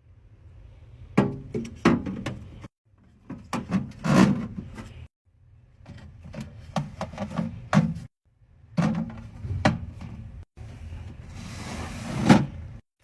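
Knocks and clatter of drinks and snacks being set into a mini fridge, with packaging rustling between them, in several short stretches that cut off abruptly.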